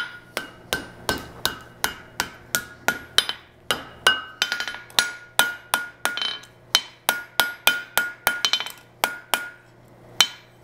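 Hand hammer striking a red-hot steel horseshoe on an anvil in a steady rhythm, about three blows a second, each blow ringing, as the shoe is reshaped on its final heat. The blows stop briefly near the end.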